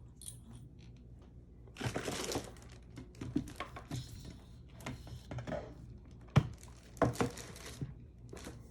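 Handling sounds on a desk as a laptop is opened and set up: a short crinkling rustle about two seconds in, then scattered clicks and knocks.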